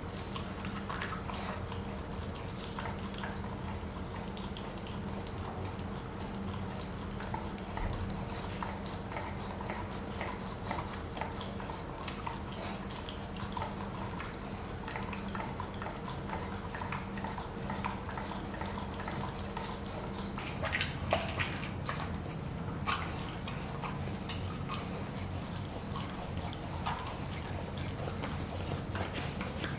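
Pomsky puppy licking and chewing food out of a stuffed rubber Kong toy: a steady run of small wet licks, smacks and clicks, with a few louder clicks a little after two-thirds of the way through. A faint steady hum sits underneath.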